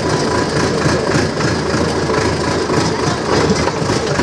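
Diesel farm tractor engine running steadily under way, heard close up from on board as it drives along a rough stony track.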